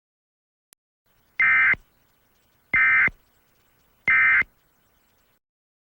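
Emergency Alert System End of Message tones: three short bursts of SAME digital data warbling, about one and a half seconds apart. They signal that the alert has ended.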